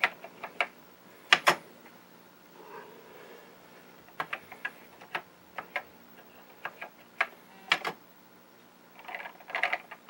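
Keystrokes on a Commodore 64 keyboard: single clicks at an uneven pace as a command is typed in, over a faint steady hum.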